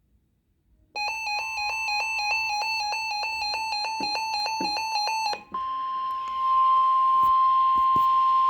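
A rapidly pulsing electronic alert beep for about four seconds, then the steady 1050 Hz NOAA Weather Radio warning alarm tone, which signals that a warning is about to be broadcast.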